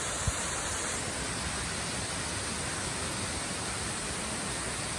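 Steady, even rush of a small forest waterfall, with one brief thump near the start.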